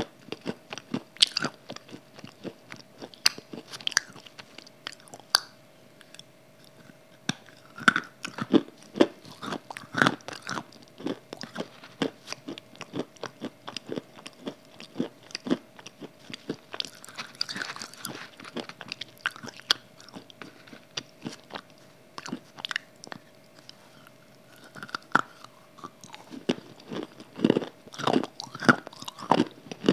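A person biting and chewing hard, crumbly grey blocks close to a microphone: sharp crunching bites and steady chewing, with louder bursts of crunching about a third of the way in and near the end.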